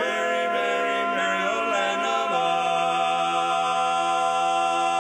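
Barbershop quartet of four men singing unaccompanied in close harmony. They move through the last notes, then settle about two seconds in on a long held final chord.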